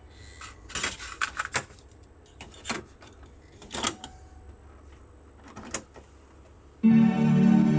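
Mechanical clicks and clunks of a Philips AZ 2100 boombox's cassette deck as a tape is loaded, the cassette door pushed shut and the play key pressed. Near the end, tape playback starts suddenly: calm ambient music of sustained tones through the boombox speakers.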